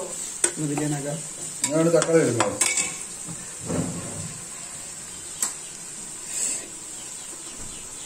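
Steel ladle stirring and scraping in an aluminium pressure cooker of frying onions and spices, with a steady sizzle and a few sharp clinks of metal on the pot. A voice sounds briefly in the first few seconds.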